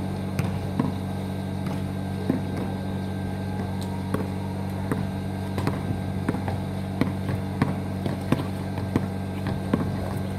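A steady low mechanical hum under the sharp thuds of a basketball bouncing on asphalt. About halfway through, the bounces settle into an even dribble of roughly one and a half a second.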